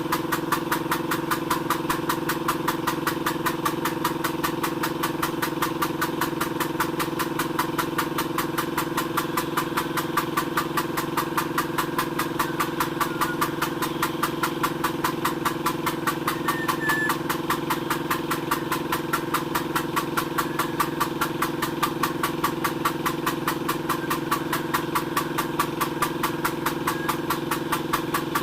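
Motor-driven pump running steadily, with a continuous hum and a fast, even pulsing that does not change.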